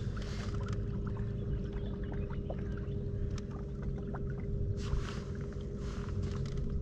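MotorGuide electric trolling motor (36 lb thrust, 12 V) running on a small boat with a steady, quiet hum, with a few small clicks and a couple of brief swishes of water or movement about five and six seconds in.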